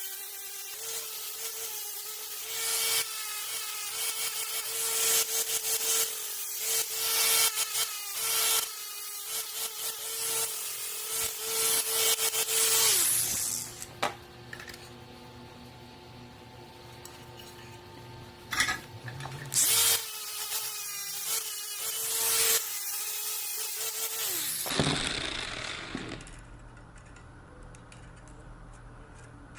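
Electric grinder running with a steady motor tone while steel is ground in rough, repeated passes. It is switched off and winds down about halfway through, starts again, grinds briefly, then is switched off and winds down near the end.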